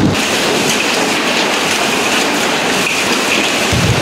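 Dense hail with heavy rain clattering on the sheet-metal roof of a petrol station canopy, a steady loud hiss of many impacts; many of the hailstones are the size of table-tennis balls.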